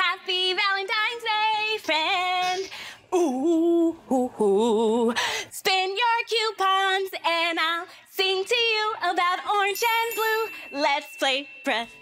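A woman singing a children's song in short phrases with brief gaps between them.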